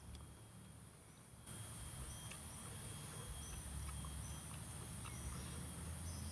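A steady, high-pitched insect buzz that starts abruptly about a second and a half in, over a low rumble, with a few faint clicks.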